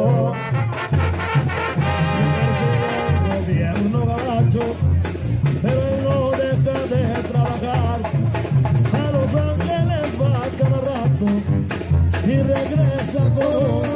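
Live Mexican banda music: a brass band plays sustained horn lines over a steady bass and drum beat.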